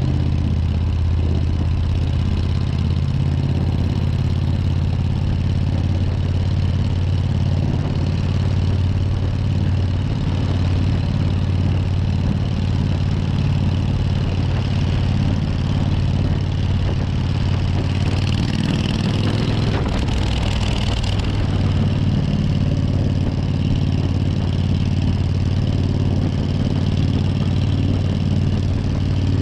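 Suzuki Intruder 1400's air-cooled V-twin running at steady, unchanging revs. A brief rise of hiss joins it about 18 seconds in.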